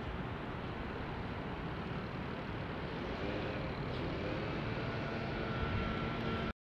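Steady engine rumble of passing motor traffic, with a hum that grows a little louder and more distinct about three seconds in. The sound cuts out abruptly to silence just before the end.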